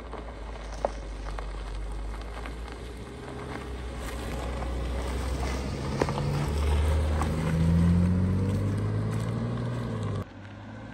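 BMW coupe driving past with its engine note rising as it accelerates from about six seconds in, loudest a couple of seconds later. Before that, a steady low wind rumble on the microphone. The sound drops off suddenly near the end.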